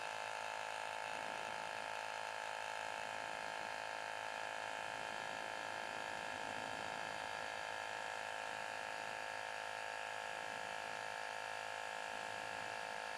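Microstart 12 V DC portable tire inflator running steadily as it pumps up a tire, a constant mechanical buzz.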